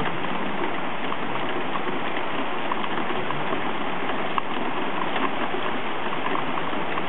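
Steady rushing water noise with faint scattered ticks and drips.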